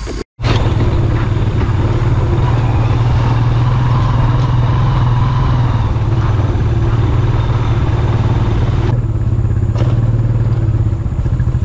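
Motorcycle engine running steadily while riding. It starts abruptly after a brief silence at the very start.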